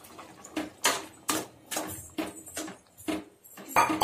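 A ladle stirring thick, wet mashed brinjal gravy in a kadai, with short scrapes and knocks against the pan about twice a second.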